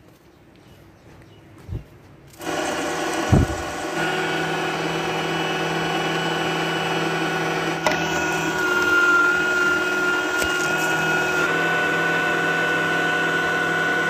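Electric meat grinder switched on about two seconds in, its motor running with a steady whine as it minces chopped onion through the grinder plate. A couple of sharp knocks sound, one just before and one just after it starts.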